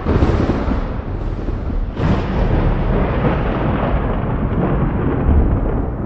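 Thunder rolling in a long, deep rumble after a clap, with a second crash about two seconds in.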